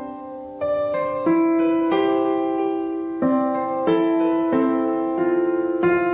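Background music: a slow piano piece, single notes struck one after another and left to ring.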